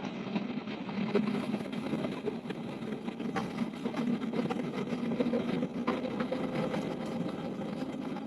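Two-stroke chainsaw engine running steadily, with a few small clicks and knocks over it.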